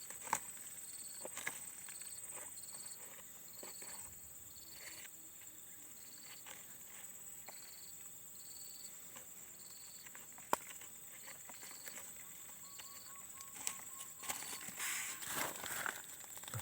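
An unseen small creature hidden in an oil palm trunk calling: a short high chirp repeating about every second over a steady high thin trill. A few sharp knocks and, near the end, scraping and rustling come from a tool prying at the trunk.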